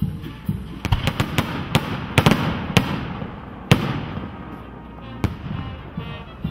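Fireworks going off overhead: a quick run of sharp bangs and crackles for a few seconds, then a single bang a little after five seconds in.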